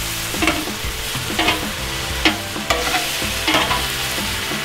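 Steak bites sizzling in garlic butter in a cast-iron skillet, with short clicks and scrapes of metal tongs against the pan every half second or so as they are stirred.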